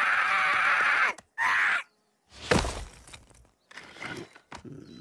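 Soundtrack of a computer-animated Baby Groot clip: a loud sustained sound with several held pitches cuts off abruptly about a second in. A short burst follows, then a heavy thud about two and a half seconds in and softer scuffing sounds on dirt.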